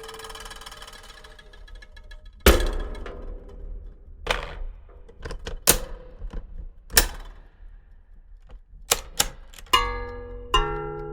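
Sharp mechanical clicks and clacks from old gear mechanisms being worked, spaced roughly one and a half seconds apart, then a quicker run of clicks. Near the end, steady ringing pitched tones come in.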